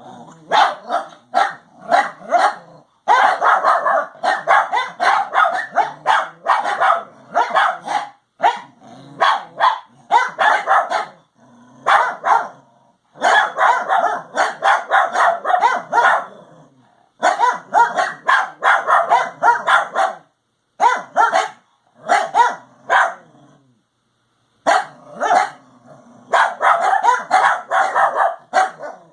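Three dogs barking hard in overlapping bouts with brief pauses between them: territorial alarm barking at ponies close by.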